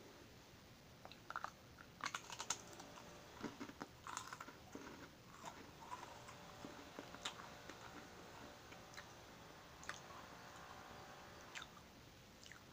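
Crisp Marie biscuit bitten and chewed: a quick cluster of sharp crunches about two seconds in, then scattered dry crunching as it is chewed.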